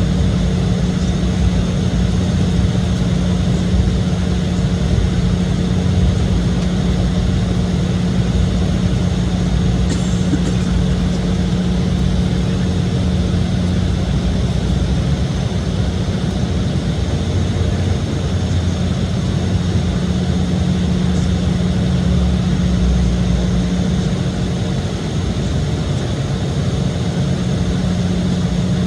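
Steady cabin drone inside an Embraer E-175 jet, from its twin GE CF34 turbofan engines and rushing air, with a constant low hum under the noise.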